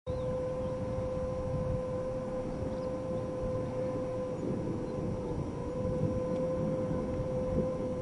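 Wind howling in an electric transformer box: one steady, held howling tone with a fainter higher overtone, over a low, rough rumble of wind buffeting.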